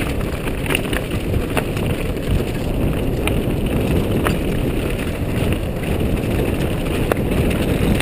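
Wind buffeting the helmet camera's microphone as a mountain bike descends a rocky track, with the bike rattling and scattered sharp knocks as it hits loose rocks.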